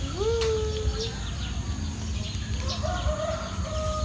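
A rooster crowing twice: a rising call held for about a second at the start, then a second, stepped crow near the end, over a steady low rumble.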